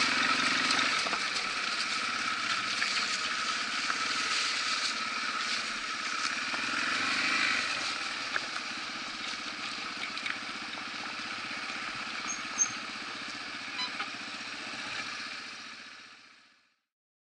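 Yamaha TW200 trail bike's single-cylinder four-stroke engine running at low speed on a gravel forest road, with gravel crunching and clicking under the tyres. It gets quieter about eight seconds in and fades out near the end.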